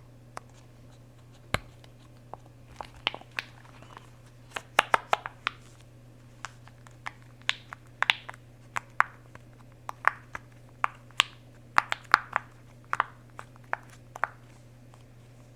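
Silicone pop-it fidget toy's bubbles being pressed through one after another: a string of short soft pops at an uneven pace, a few a second, thickest a few seconds in.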